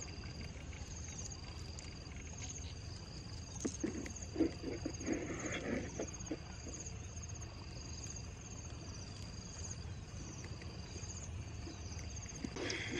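Insects chirping in short, high, repeated pulses over a steady low background hum, with rustling and light knocks about four to six seconds in as the mesh net trap is handled.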